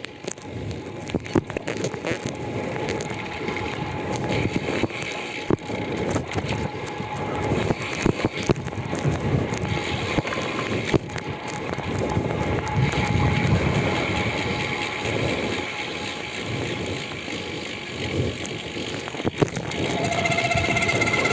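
Road bicycle on Vision SC 40 carbon disc wheels being ridden, with road and tyre noise and irregular clicks and rattles. Near the end a steady pitched hum sets in, the noise that comes from these wheels after braking.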